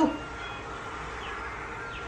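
A thin stream of liquid pouring steadily from a small bowl into a large ceramic mixing bowl, a continuous trickle.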